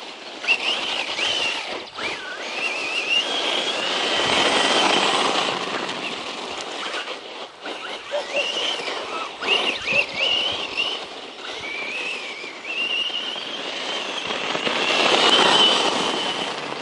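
Brushless electric motor of a 1/10-scale RC truck whining, its pitch rising and falling repeatedly as the throttle is worked, over the rushing noise of the tyres on the ground.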